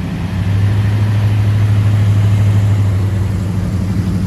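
Sea-Doo jet ski's Rotax 951 two-stroke twin engine running steadily with a low, even hum.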